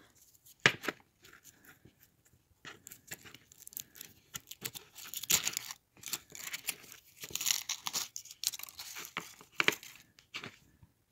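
Foil wrappers on dark chocolate Kisses crinkling and tearing as they are peeled off by hand, in irregular crackling bursts with scattered sharp clicks.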